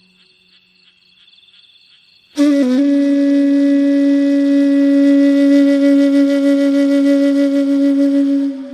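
Balinese bamboo flute (suling) music. About two seconds of soft high held tones, then a loud low flute note comes in with a short ornamental dip and is held steadily for about six seconds.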